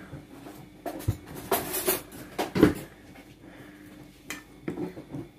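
Metal pie server scraping and clinking against a glass baking dish while baked macaroni is scooped out: several knocks and scrapes, the loudest about halfway through.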